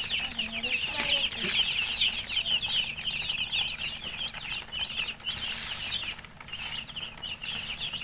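A flock of newly hatched chicken chicks peeping continuously, many short, high chirps overlapping without a break.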